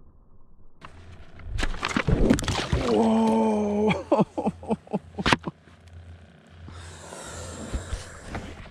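Knocks and splashing as a slippery speckled trout thrashes free of the angler's grip and drops back into the water beside a plastic kayak, with a drawn-out groan of dismay partway through.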